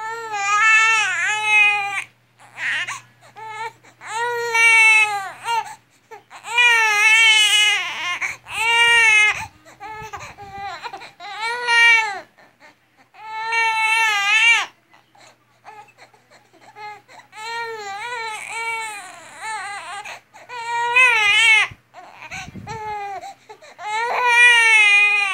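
A four-month-old baby crying: a string of wavering, high-pitched wails, each a second or two long, with short gaps between them.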